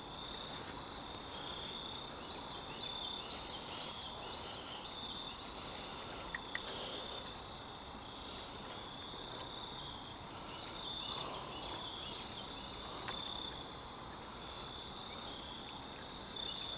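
Faint chirping of crickets: short trills at one high pitch, repeating every second or so, with a couple of soft clicks.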